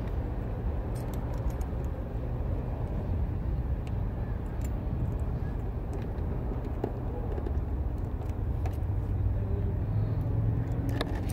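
Small plastic and metal clicks and taps of an H7 halogen headlight bulb being handled and fitted into its socket by hand, with one sharper click near the end, over a steady low hum.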